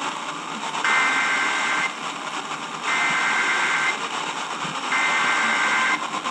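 EAS SAME digital data bursts from a NOAA Weather Radio broadcast: three roughly one-second squawks of two alternating tones, about a second apart. Heavy radio static hisses underneath from poor reception.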